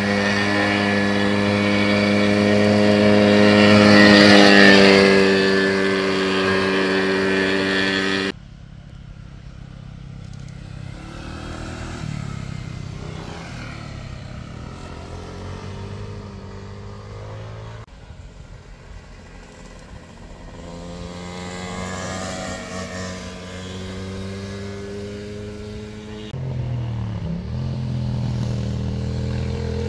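Motorcycle engines heard from the roadside as bikes ride through a hairpin bend, in several cut clips. The first is loud, its engine note rising and peaking about four seconds in. It cuts off suddenly to a quieter stretch in which a motor scooter passes, and another motorcycle engine comes in loud near the end.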